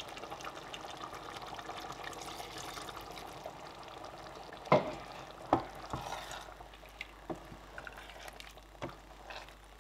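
Water poured into a simmering pot of egusi soup, a steady liquid sound for the first few seconds. Then a wooden spatula stirs the thick soup and knocks against the side of the stainless steel pot about five times, the first knock the loudest.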